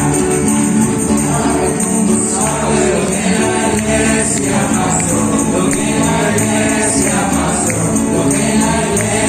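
Upbeat Christian praise song: a group of voices singing together over a shaking tambourine, playing steadily.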